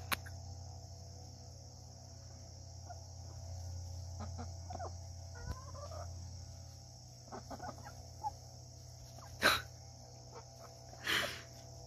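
Chickens clucking softly and now and then, a few short calls scattered over a steady high background hiss, with two brief sharp noises near the end.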